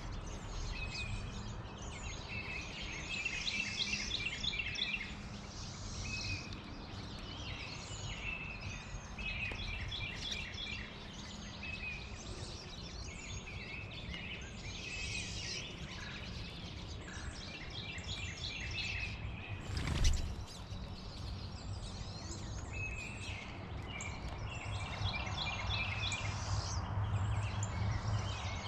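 Small backyard songbirds singing and chirping, with repeated trilled phrases throughout over a steady low rumble. A single sharp knock about 20 seconds in is the loudest sound.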